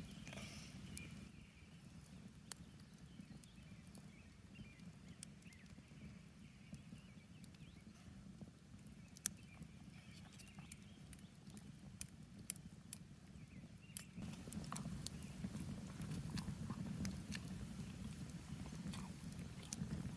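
Campfire crackling faintly, with scattered sharp pops and snaps over a low, steady rumble. The fire grows a little louder about two-thirds of the way through.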